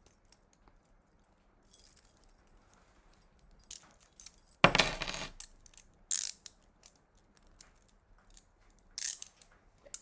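Steel chained handcuffs being handled and worked with a key: scattered small metallic clicks and clinks, with one louder metal clank about five seconds in and a few sharper clicks after it.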